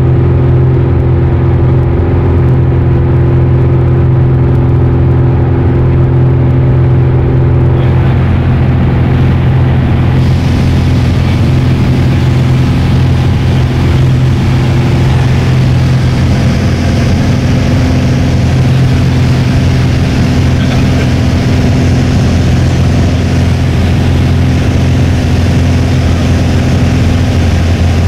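Piper PA-28 Arrow's engine and propeller heard from inside the cabin in flight: a loud, steady drone with a strong low hum. From about ten seconds in, a rushing hiss of air grows louder over it.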